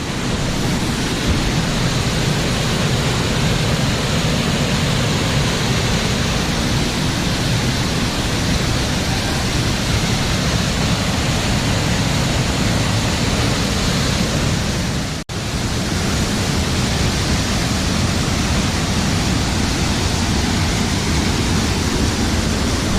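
Steady rushing of a waterfall, an even roar of falling water, cut off for an instant about fifteen seconds in.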